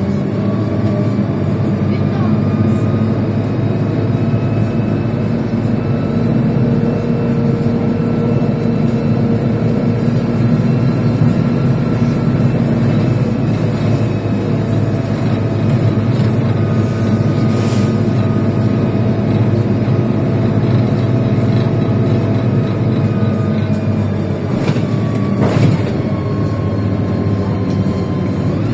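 Cabin noise of a MAZ-103 city bus driving: a steady engine and road rumble with a whine that slowly drifts up and down in pitch as the speed changes. Two sharp knocks, about 18 and 25 seconds in, stand out from the running noise.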